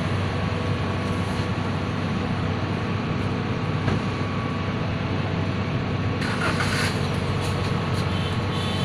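A vehicle engine running steadily at idle, a low even hum, with a brief hissing rattle about six and a half seconds in.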